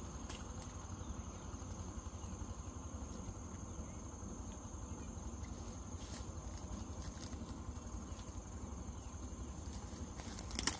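A steady high-pitched insect drone, typical of a cricket or cicada, over a low background rumble, with a few soft clicks or knocks.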